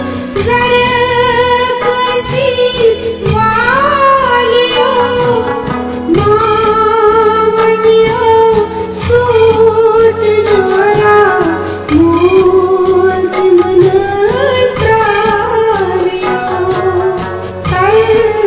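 Music: a song with a woman's singing voice over instrumental backing.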